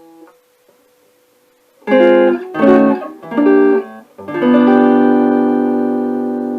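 Guitar played through a Monoprice 15-watt tube amp: three short strummed chords, then a chord left to ring and slowly fade. The amp has at least one microphonic tube, which the player believes is a power tube.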